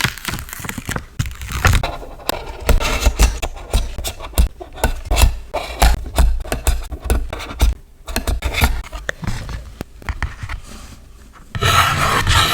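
Irregular rubbing and scraping of sticker paper being handled and pressed down by hand. Near the end, a louder continuous rasp begins.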